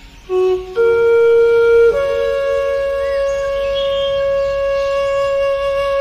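Meditation music: a breathy wind instrument plays three notes, each higher than the last, the third held long and steady.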